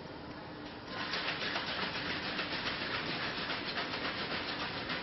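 A spoon stirring chestnut honey and Scotch whisky together in a glass: rapid rhythmic scraping that starts about a second in and keeps going.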